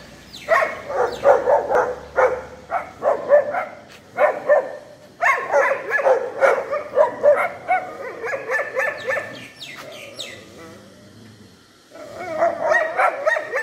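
Stray dogs barking in rapid, overlapping flurries. There is a lull of about two seconds near the end, then the barking starts again.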